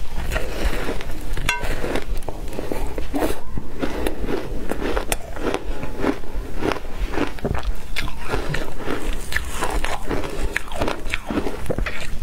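Repeated crunching bites into a frozen block of shaved ice coated in matcha powder, the ice cracking and being chewed in quick irregular crunches.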